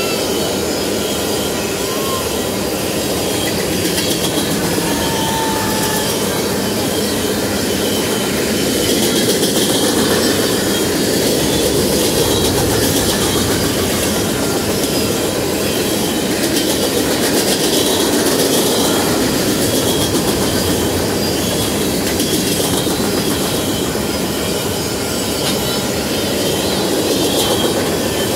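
CSX freight train's open-top gondola cars rolling past: a steady rumble and rattle of steel wheels on rail. Brief faint wheel squeals sound a couple of times in the first several seconds.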